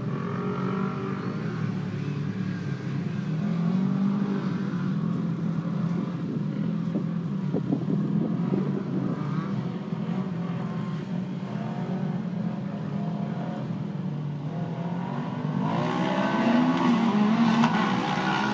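Engines of non-turbo off-road race vehicles running steadily, then revving up and getting louder in the last few seconds.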